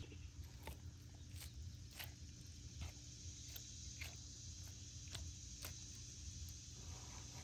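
Faint, irregular clicks and ticks of a pocket knife cutting meat away from a snapping turtle's shell and leg bone, about one or two a second, over a low steady hum.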